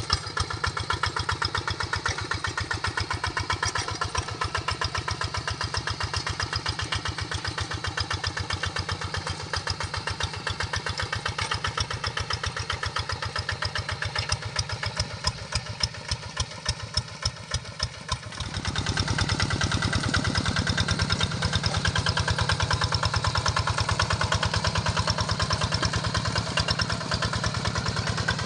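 Large paddy-field tractor's engine running with a steady firing rhythm, turning louder and heavier about two-thirds of the way in as it takes on more throttle or load.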